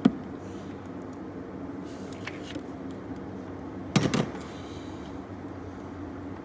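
Metal knocks from the replacement starter and tools being worked into place in a cramped engine bay: one sharp knock at the start and a short rattling cluster about four seconds in, over a steady low hum.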